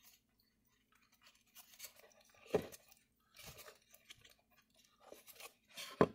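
Faint scratchy rustling of thin picture-hanging wire being twisted around itself by hand. Light knocks come about two and a half seconds in and again near the end.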